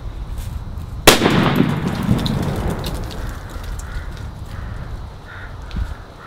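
A banger firecracker goes off with a single sharp bang about a second in, bursting a half-full butane lighter. The bang dies away over about a second.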